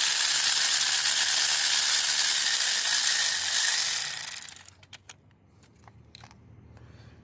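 A steady, loud hiss lasting about four and a half seconds, then fading out, followed by a few faint clicks.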